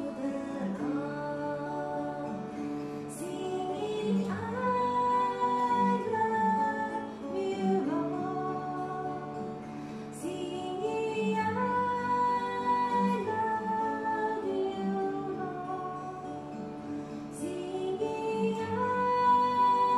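A woman singing a slow song in long held phrases, accompanying herself with plucked notes on a small acoustic string instrument.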